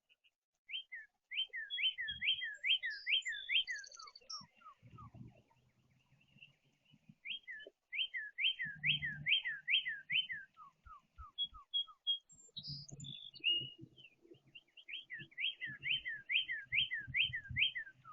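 A songbird singing three phrases of fast, repeated down-slurred whistles, each trailing off into a few lower notes, over soft low thuds.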